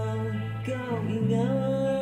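A male vocalist singing long held notes over a backing track with a steady low bass; the melody glides and the chord changes about a second in.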